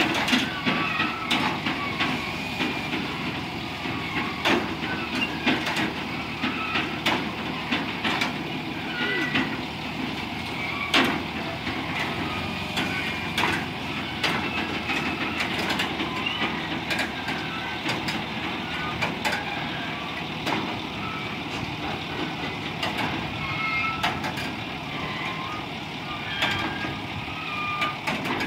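Semi truck's diesel engine running as it slowly moves a flatbed trailer loaded with a steel shipping container, with repeated sharp clanks and knocks from the rig and its load, the loudest about eleven seconds in.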